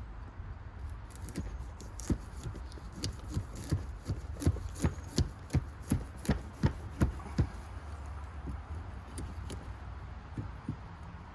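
A pumpkin being chopped open: a run of sharp, hard chopping strikes, about two or three a second, loudest and quickest in the middle, with a few looser knocks before them.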